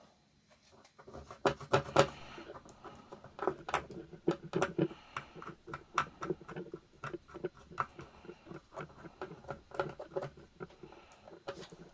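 Irregular small clicks, taps and scratches of hand work on a radio circuit board, starting about a second in and going on at several a second.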